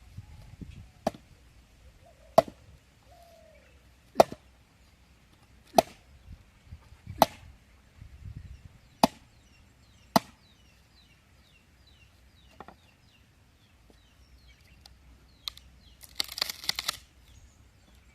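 Chopping on wood with a blade, about seven sharp strikes roughly one every second and a half, then a weaker one, with a brief noisy clatter near the end.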